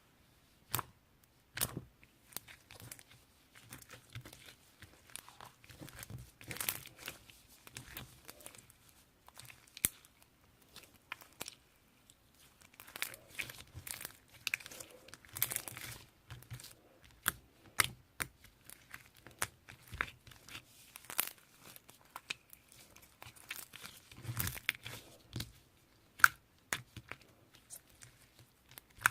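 Slime being handled and stretched by hand, giving irregular sticky crackles and sharp clicking pops.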